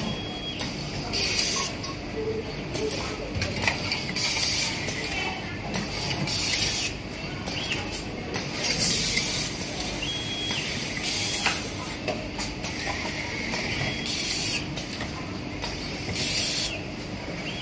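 Tabletop coordinate-type automatic screw-locking machine at work: short hisses of compressed air every second or two from its pneumatic suction screw feeding, over a steady low hum.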